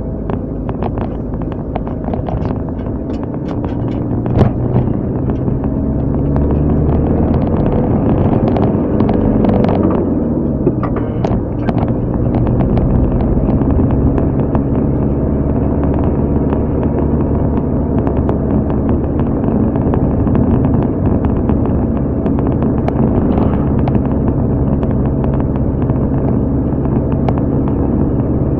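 Car engine and road noise heard while driving, the engine note shifting about ten seconds in and then running steadily, with scattered light clicks and knocks.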